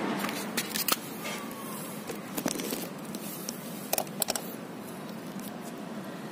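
Handling noise from a phone camera being moved and set down: a few sharp clicks and knocks in small clusters, about half a second in, around two and a half seconds and around four seconds, over a steady background hiss.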